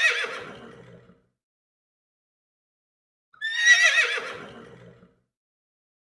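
A horse whinnying twice: a high, quavering call that drops in pitch and trails off, one right at the start and another about three seconds later.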